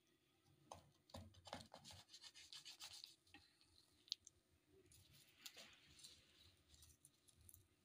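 Faint scraping and rubbing of a knife cutting through a soft baked date cake, in two spells, about a second in and again about five seconds in, with a single light tick between them.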